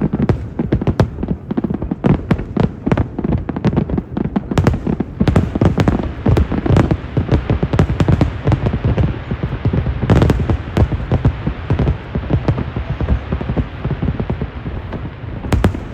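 Aerial fireworks bursting in a dense, continuous barrage of booms and crackling pops.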